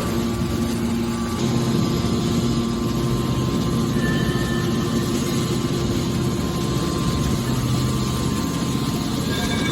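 Hydraulic scrap metal baler running: a steady machine drone from its hydraulic pump and motor, holding an even pitch throughout.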